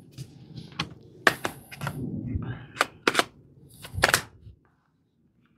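Irregular sharp clicks and knocks of a cordless jigsaw being handled as its saw blade is seated in the clamp, a few in quick pairs. It cuts off to silence about four and a half seconds in.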